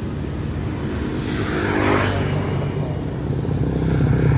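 Road traffic: motor vehicle engines passing close by, one swelling and fading about two seconds in, and another engine growing louder near the end.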